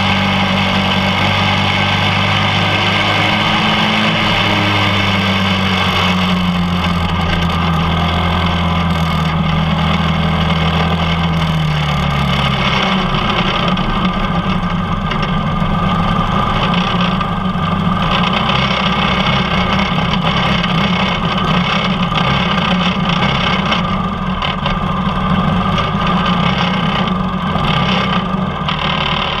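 Quarter midget race car's small engine heard on board, running at a steady pitch that slowly sinks as the car slows after the race. About twelve seconds in it drops to a lower, rougher, uneven low-speed running as the car rolls off the track.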